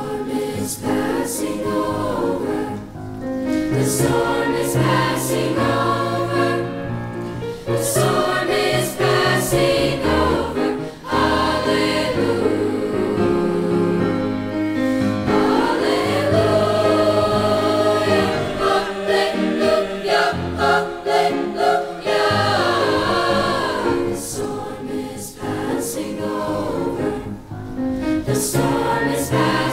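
Mixed-voice youth choir singing a gospel arrangement in parts, with piano accompaniment.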